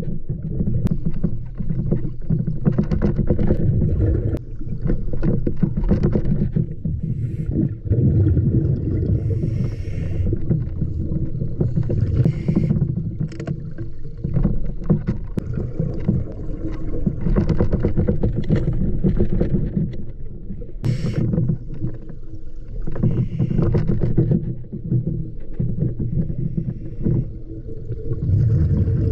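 Underwater sound through a dive camera's housing: a steady low rumble and hum, broken every few seconds by a burst of hissing, gurgling bubbles, a scuba diver's exhaled regulator bubbles.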